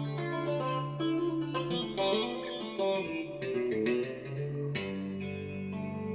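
Fender Stratocaster electric guitar played with a clean tone, the right hand tapping notes on the fretboard alongside the left-hand notes: a quick flowing run of ringing notes over a sustained low note, which changes to another low note about five seconds in.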